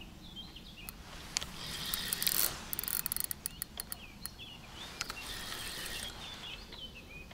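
Spinning reel clicking in a quick run of sharp ticks, with a brief hiss just before, as a hooked carp is played on a light rod.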